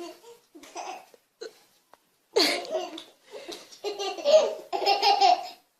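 Baby laughing in short, high-pitched bursts, getting louder from about halfway in.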